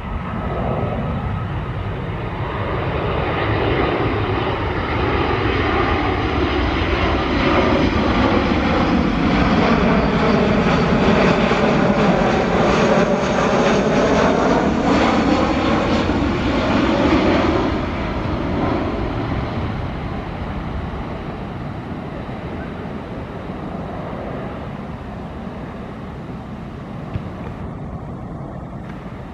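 Boeing 737-700 jet on final approach, its CFM56 turbofans running at approach power. The sound swells as the plane draws near, peaks with a sweeping, phasing whine as it passes, and fades away over the last third.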